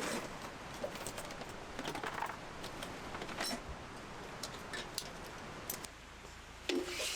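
Scattered light clicks and taps at an irregular pace, with a louder knock near the end.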